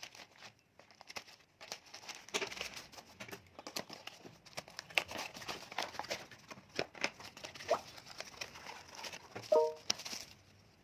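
A parcel's packaging being torn open and unwrapped by hand, with irregular crinkling, crackling and tearing.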